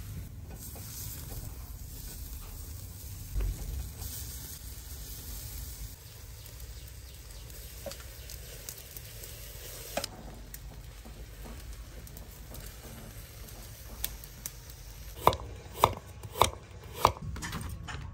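Chicken feet grilling on a wire rack over a charcoal brazier, the fire sizzling and crackling with an occasional pop. Near the end, a kitchen knife chops carrots on a wooden chopping board, about four sharp chops roughly twice a second.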